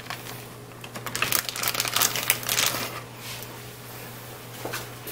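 Plastic bag crinkling and rustling as raw chicken is handled out of it, dense crackles for the first few seconds and then quieter.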